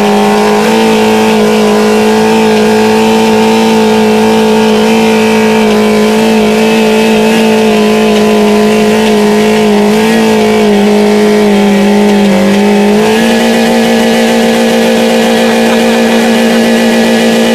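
Car engine held at high, steady revs with the throttle pinned, run hard to blow the engine; the pitch steps up slightly about thirteen seconds in.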